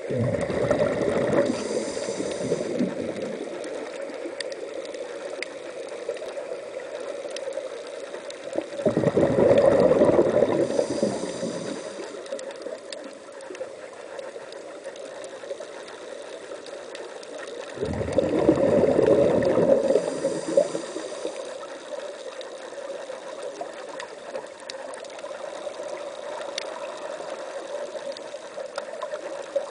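A scuba diver breathing through a regulator, heard underwater. A loud bubbling rush comes three times, about every nine seconds, each lasting a few seconds and ending with a short hiss.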